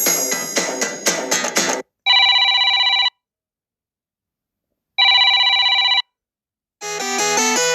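Samsung Galaxy A23 5G ringtones: a busy melodic tone cuts off just under two seconds in. Then a telephone-style ring sounds twice, about a second each with a two-second gap between. A new melodic ringtone with stepping notes begins near the end.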